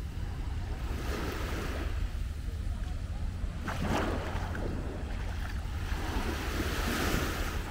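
Surf washing onto a sandy beach, its hiss swelling and ebbing a few times, loudest about four seconds in and again near the end, over a steady low rumble of wind on the microphone.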